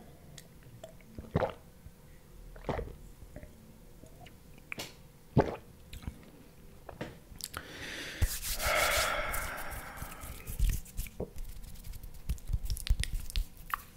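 Close-mic mouth sounds from drinking: a few separate gulps and wet clicks. About eight seconds in comes a longer rustling noise, followed by a run of quick clicks and taps as fingers flutter around the microphone.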